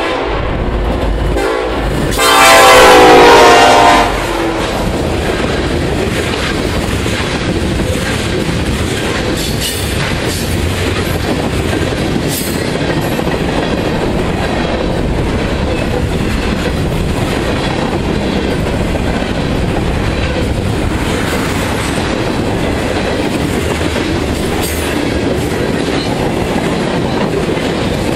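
Freight train passing close by: the lead Kansas City Southern EMD SD70ACe diesel locomotive sounds its air horn in one loud blast of about two seconds, starting about two seconds in. Then the locomotives and a long string of loaded hopper and tank cars rattle steadily past, wheels clattering over the rail.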